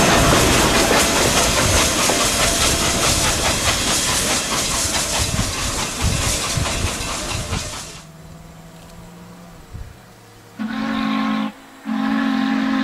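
Norfolk & Western Class J 611 steam locomotive passing close with its train: a loud rush of exhaust, hissing steam and wheel clatter that cuts off suddenly about eight seconds in. Near the end its steam whistle sounds twice from a distance, two long blasts.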